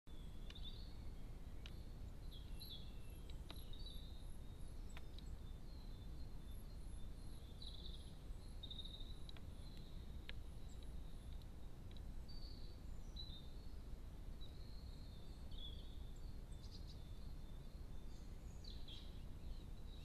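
Faint birdsong from small garden birds, with short chirps and warbled phrases, over a steady low outdoor rumble. Two quick runs of very high, thin notes come early on and again about a third of the way through, and a few faint clicks are scattered through.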